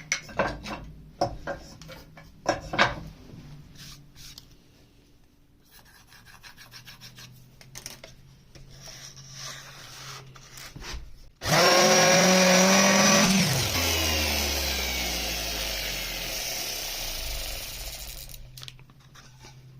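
Handling clicks and rubbing, then a 5-inch DeWalt random orbital sander switched on with a new hook-and-loop backing pad fitted. It runs loud and steady for about two seconds, then is switched off and winds down with a falling whine over several seconds.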